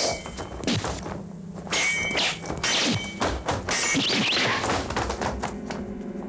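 A quick run of thuds and thunks from blows in a staged martial-arts fight, some followed by short ringing tones, over background music.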